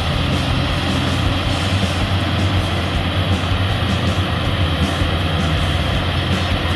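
Combine harvester running steadily under load while harvesting rice, a continuous low engine drone with the rushing clatter of the threshing machinery.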